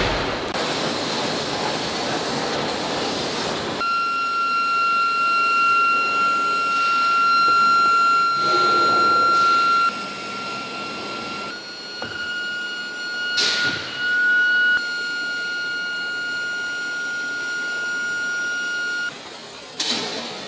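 Forging-shop machinery running: a rushing noise for the first few seconds, then a steady high-pitched machine whine with fainter higher overtones, stepping slightly in pitch and level a few times, with a short burst of hiss about two-thirds of the way through.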